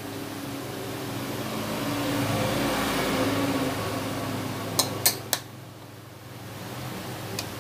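Squid adobo sauce simmering in an aluminium wok with a steady hiss that swells and then falls away, and a metal spoon clicking against the wok three times about five seconds in and once more near the end.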